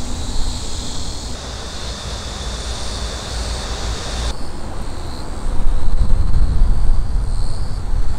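Wind buffeting the microphone in uneven gusts, heaviest a little past halfway, over a steady high-pitched buzz.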